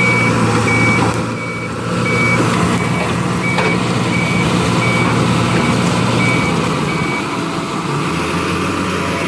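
A heavy machine's reversing alarm beeping at a steady pace, about three beeps every two seconds, over a diesel engine running. The beeping stops about seven seconds in.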